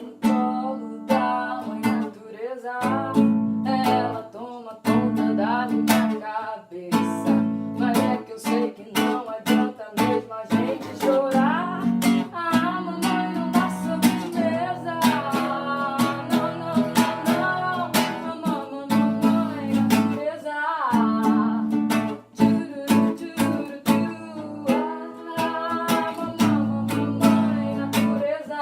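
Acoustic guitar strummed in a steady rhythm, with singing over it.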